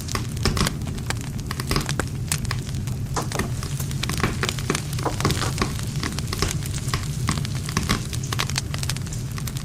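Wood campfire crackling, with many quick irregular pops and snaps from the burning wood over a steady low rumble of the flames.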